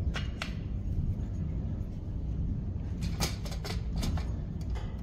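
Light clicks and knocks of a bracket and its cable lugs being handled and set down on a metal mounting plate. A couple come at the start and a cluster about three seconds in, over a steady low hum.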